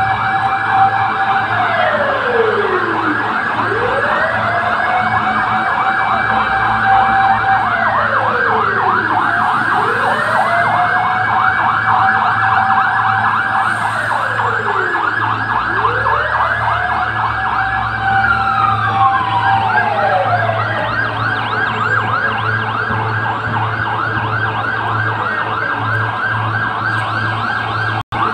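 Emergency vehicle sirens sounding together: a slow wail rising, holding and falling about every four seconds over a rapid yelp. The wail falls away about 20 seconds in while the yelp carries on, and the sound drops out for an instant near the end.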